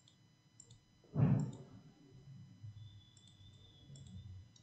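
Computer mouse clicking about five times, a few short sharp clicks spread over the few seconds. About a second in comes one brief, louder low sound.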